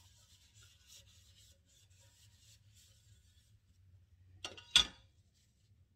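Paper towel rubbing oil over a square frying pan: a soft, broken scrubbing sound. About four and a half seconds in, a sharp double clack comes from the pan and gas stove as they are handled.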